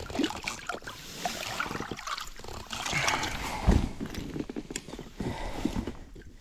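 Water sloshing and splashing beside an inflatable boat as a large pike is held in the river current to revive it before release, with one louder dull thump a little past the middle.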